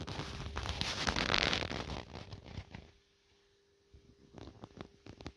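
Rustling, crackling handling noise for about the first two and a half seconds, then a few scattered sharp clicks.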